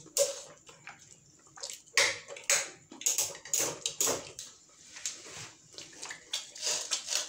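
Eating khichuri and meat curry by hand: irregular wet squelches and clicks of chewing and lip smacking, with fingers working the rice.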